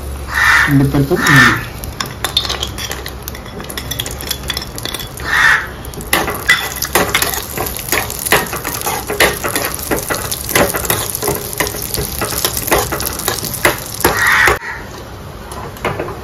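Cashew nuts and raisins frying in hot ghee in an aluminium kadai: a steady high sizzle, surging about half a second in as the cashews are tipped in. From about six seconds a metal spoon scrapes and clicks rapidly against the pan as they are stirred.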